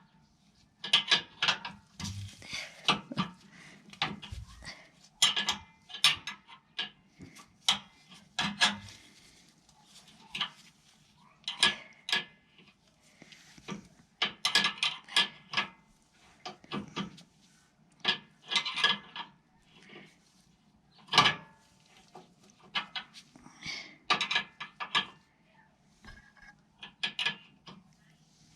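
Hand tools clinking and clicking against metal in irregular clusters while the bolts of a truck's old rear bump stop are worked loose.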